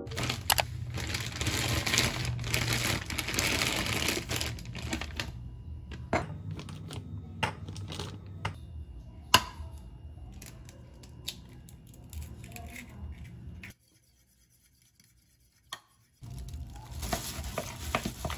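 Kitchen handling sounds: rustling, with scattered clicks and knocks of bowls and utensils on a countertop, and a sharp crack about nine seconds in as an egg is broken against a bowl. About two seconds of dead silence come near the end, then more rustling and scraping.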